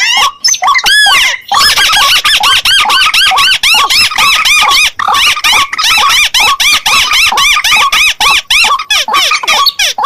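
Recorded calls of several rice-field birds of the rail and waterhen kind, mixed together as a hunting lure: rapid, overlapping squeaky notes that each rise and fall in pitch. A few separate notes come first, then a dense unbroken chorus from about a second and a half in.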